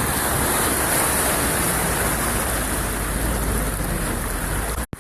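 Heavy rain and a car driving through floodwater: a steady, loud rush of water spray and downpour that cuts off abruptly just before the end.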